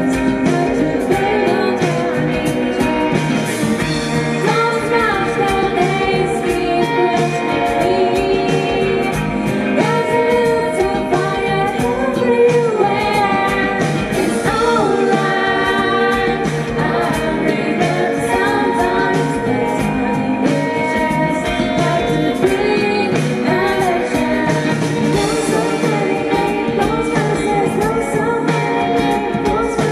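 Live band playing a song: a woman sings lead over two electric guitars and a drum kit.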